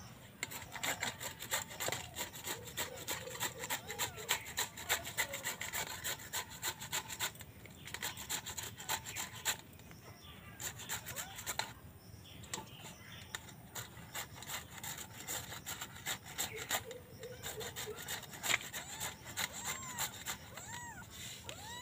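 Peeled raw papaya being grated on a flat stainless-steel hand grater: quick runs of rasping strokes with short pauses. A few high kitten mews come in near the end.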